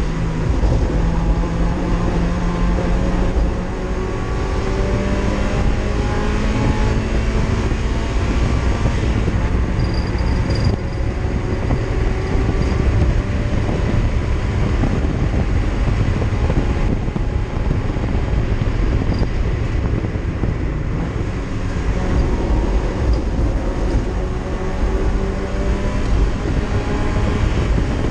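A race car's engine running hard at speed, heard from inside the stripped cabin. Its pitch climbs slowly and falls back several times, over a heavy rumble of road and drivetrain noise.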